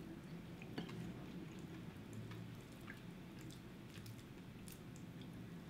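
Faint, scattered clicks and soft squishes of cooked Dungeness crab shells being picked apart by hand, with quiet chewing, over a low steady hum.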